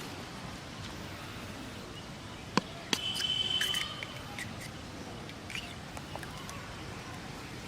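Outdoor background hiss with two sharp clicks, then a short high bird chirp lasting about a second.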